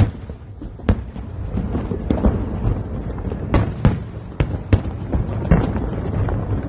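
Fireworks going off: a run of sharp bangs and cracks, roughly one every half second to second, over a steady low rumble.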